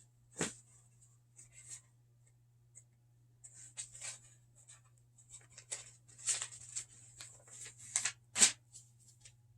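Paper rustling and handling as a picture book's pages are turned: scattered short rustles, with a sharper tap about half a second in and another near the end, over a faint steady hum.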